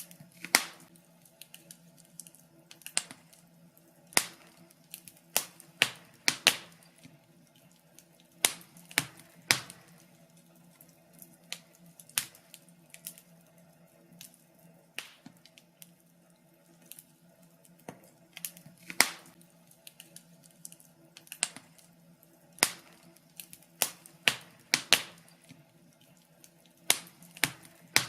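Wood fire crackling: irregular sharp pops and snaps, some much louder than others, over a faint steady hum.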